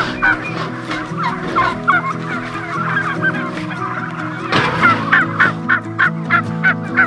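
A flock of turkeys calling: many short, high calls repeated several times a second and overlapping, with a brief rush of noise about four and a half seconds in.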